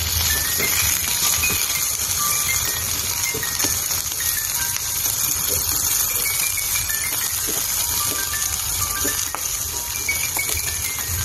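Soft background music, a melody of short high notes, over a steady hiss of food frying in a pan, with a few faint light taps as the food is stirred with chopsticks.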